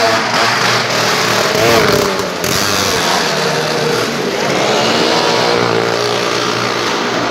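Motorcycle engine running hard as the bike circles the vertical wooden wall of a well-of-death motordrome, its pitch rising and falling with the throttle.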